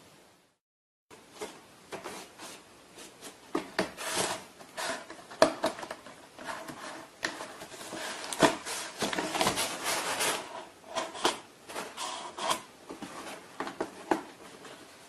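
A cat scrabbling and pawing inside a cardboard box, starting about a second in: irregular cardboard scrapes, rustles and sharp knocks.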